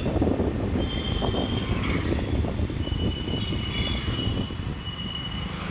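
Rumbling road and wind noise from riding along a road in a moving vehicle, with wind buffeting the microphone. Thin high whistling tones come and go over it.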